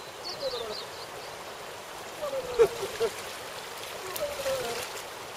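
River water running steadily, with short faint calls over it and a single sharp click about two and a half seconds in.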